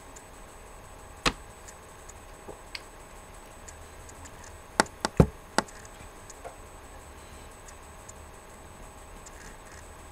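A few sharp clicks: one about a second in, a fainter one shortly after, then a quick run of four near the middle, over a faint steady background hum.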